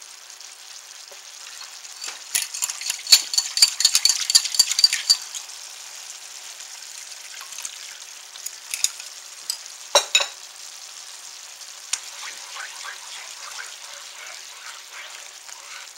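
Onion-and-mushroom brown gravy simmering in a nonstick pan while a spatula scrapes and clacks against the pan, with a quick run of scrapes about two to five seconds in. A cornstarch slurry is poured in and stirred through to thicken the gravy, and a couple of sharp knocks on the pan come about ten seconds in.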